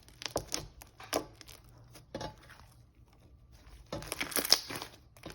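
Clear glue slime with fruit fimo slices being squished and pressed by hand: scattered small clicks and crackles, busiest about four seconds in.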